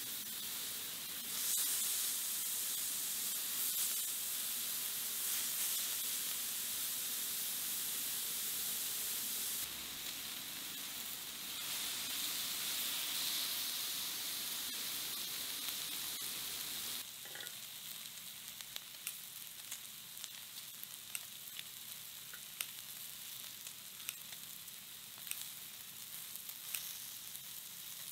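Slices of pork belly (samgyeopsal) sizzling on a round ridged grill pan: a steady frying hiss that drops in level twice, with fat popping and crackling in short sharp ticks through the later part.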